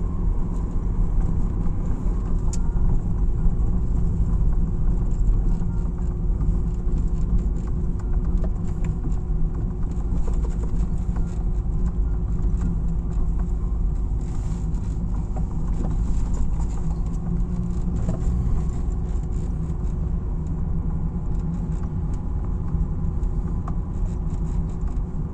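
Car driving at low speed, heard from inside the cabin: a steady low rumble of engine and tyres on a rough track, with scattered light clicks and knocks.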